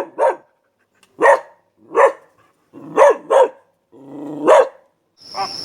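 A dog barking: about seven short, sharp barks, some in quick pairs, with pauses between. Near the end a steady high-pitched chirring begins.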